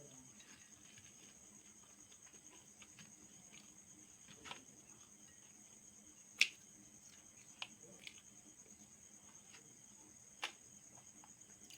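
Faint eating sounds: a handful of scattered short clicks and taps, the sharpest about six and a half seconds in, over a steady high-pitched chirring hum.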